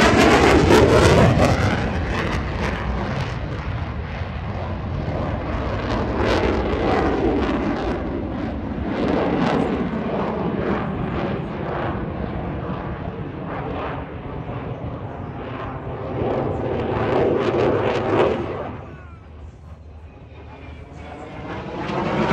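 F-16 fighter jet's engine during a flypast: loud at first with a falling pitch as it goes by, then a steady rumble while it manoeuvres. It fades for a couple of seconds near the end, then swells again as the jet comes back.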